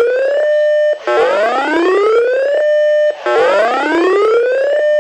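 Electronic alert siren tone on a weather-alert broadcast recording: a whoop that sweeps up in pitch, holds briefly at the top, then cuts off, repeating about every two seconds.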